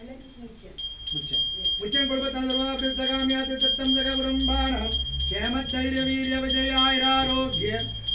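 A brass hand bell rung rapidly and continuously, about five strokes a second, starting about a second in. Under it are long held pitched tones of a few seconds each, with a short break in the middle and another near the end.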